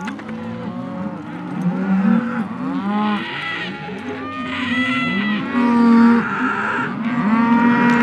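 A penned herd of cattle mooing, many calls overlapping, some low and some higher-pitched.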